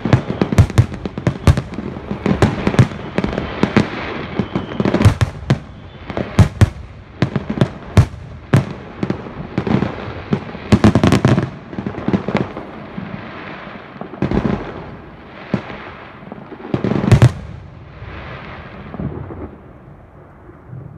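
Fireworks display: aerial shells bursting with sharp bangs over crackling, many overlapping at first, then thinning to scattered bangs. A last cluster of loud bursts comes near the end before the sound fades away.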